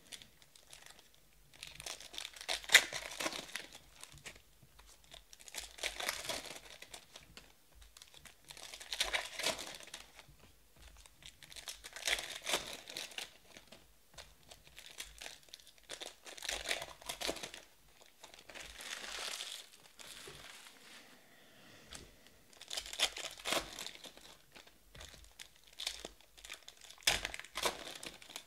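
Trading-card pack wrappers crinkling and tearing as packs are handled and ripped open, in about eight bursts of a second or two, roughly every three seconds.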